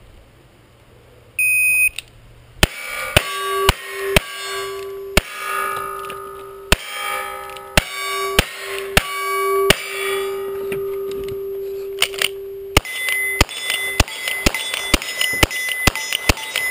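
Shot timer beeps once, then a string of gunshots at steel plate targets, each hit followed by the steel ringing. About ten evenly paced pistol shots come first, then after a short pause a faster run of rifle shots with a higher ring.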